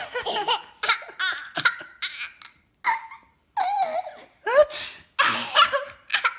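Baby laughing in a string of short, high-pitched bursts, with a couple of louder breathy bursts about four and a half to six seconds in.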